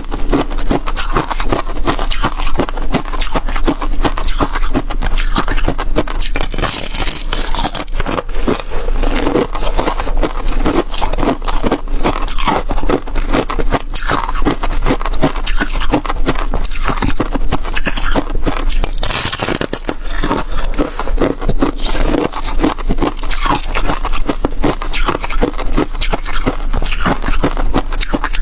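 Flaky frozen bottle ice being bitten and chewed close to the microphone: dense, continuous, rapid crunching and crackling.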